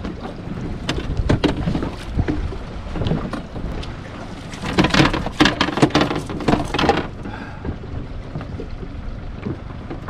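Knocking and rattling on a small fishing boat, with wind on the microphone; a dense run of sharp knocks comes about five to seven seconds in.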